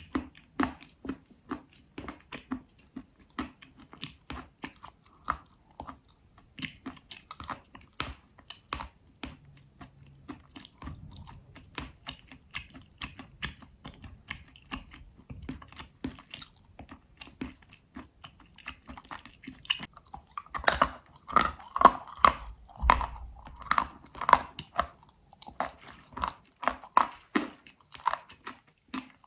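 Astana edible chalk being bitten and chewed: a steady run of sharp, dry crunches that grow louder and denser about two-thirds of the way in.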